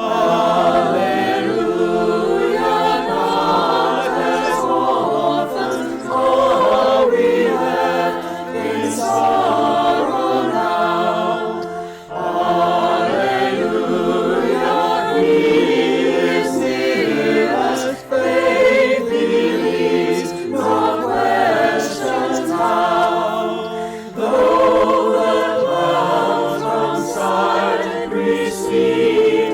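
Choir singing a church anthem, in phrases separated by brief pauses.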